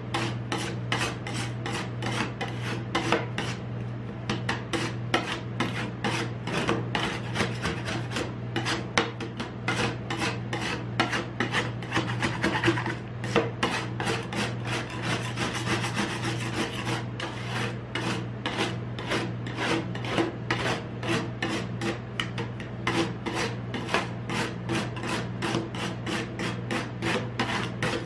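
Two metal spatulas chopping and scraping crushed ice against the steel plate of a rolled-ice-cream cold pan, in a quick, even rhythm of about four strokes a second. A steady low hum runs underneath.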